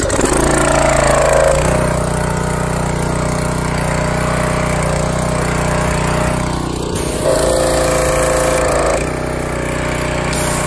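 Powerhorse pressure washer's small single-cylinder gas engine, just started and running steadily at full throttle. A higher tone comes in for a while about seven seconds in and again near the end.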